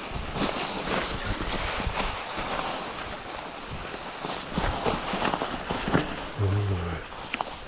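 Mountain bike rolling fast downhill over a trail deep in dry fallen leaves: continuous rustling and crunching of leaves under the tyres, with many sharp rattles and knocks from the bike over roots and stones. A brief low hum sounds a little past six seconds in.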